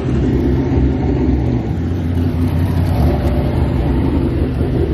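Cadillac DPi prototype race car's V8 engine running at low revs as the car crawls past close by, loud and steady. Its note drops slightly about a second and a half in.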